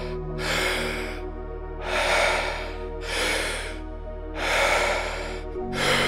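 Wim Hof method power breathing: deep, rhythmic inhales and exhales, about one full breath every two and a half seconds. Underneath is soft sustained pad music whose chord shifts near the end.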